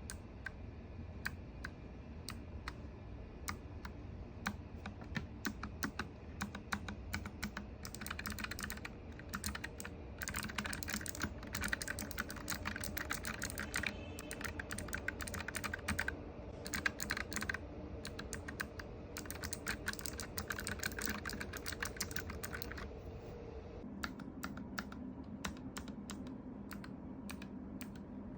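Typing on a Nuphy Air75 low-profile mechanical keyboard with Gateron KS-33 clicky switches, its bottom housing damped with a PORON foam mat: a steady stream of sharp key clicks, coming in quicker runs through the middle, over a faint low hum.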